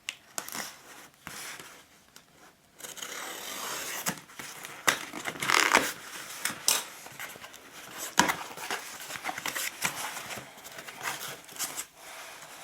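Hands opening a product box and handling its packaging: irregular rustling, crinkling and scraping with scattered clicks, and a sharp click about eight seconds in.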